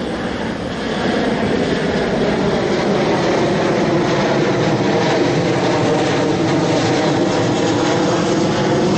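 Airliner on its landing approach passing low overhead: a steady engine roar with several humming tones, growing louder about a second in.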